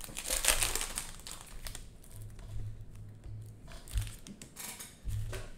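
Cellophane wrapper of a Prizm basketball cello pack crinkling as gloved hands tear it open. It is loudest in the first second, then turns to lighter rustling with a few small clicks.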